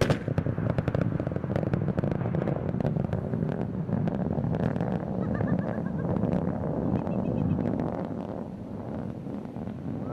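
Falcon 9 first-stage booster landing: a sharp sonic-boom crack at the very start, then the Merlin engine's landing burn as a loud, crackling rumble that eases off near the end.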